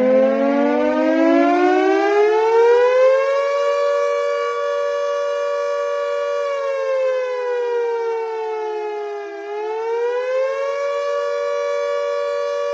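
Civil defense siren used as an emergency alert's warning signal, winding up in pitch over the first few seconds and then holding a steady wail made of two close pitches. About nine seconds in it dips lower and rises back to the same held pitch.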